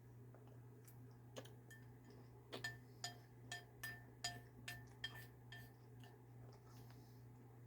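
A metal spoon clinking against a cereal bowl about eight times in quick succession, roughly two strikes a second, each with a short ring. There is a low steady hum underneath.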